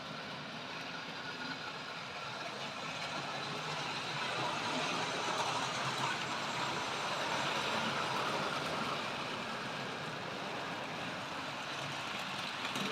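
Model train running on the layout's track, a steady whirring rumble of motor and wheels on rail that grows louder about a third of the way in as it comes closer, then eases a little.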